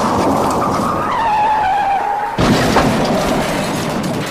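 Car tyre-screech sound effect: a squealing tone that drops slightly in pitch and holds, then about two and a half seconds in a sudden loud burst of noise with a sharp knock.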